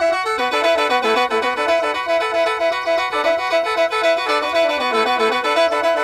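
Khaen, the bamboo free-reed mouth organ, playing a quick melody of short repeated notes over steady drone tones.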